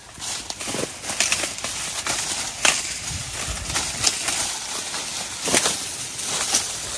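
Dry corn stalks and leaves rustling and crackling as pickers push through them and break ears off by hand, with sharp snaps every second or so.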